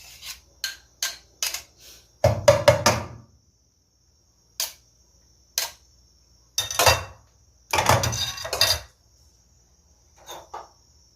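Kitchen utensils and dishes clattering and knocking as they are handled: a few sharp clinks, then three louder rattling bursts of a second or so each.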